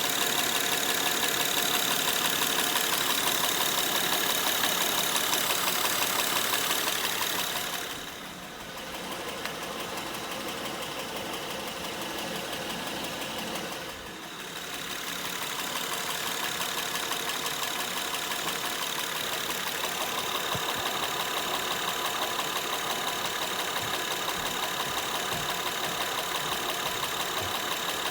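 Second-generation Honda Pilot's V6 engine idling with a fast, even knocking from the engine. It goes quieter for several seconds about a third of the way in, then comes back up.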